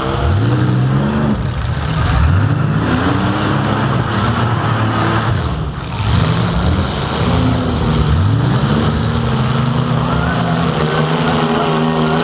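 Compact demolition derby car's engine, heard from inside the cabin, revving up and falling back several times as the car accelerates and slows across the arena.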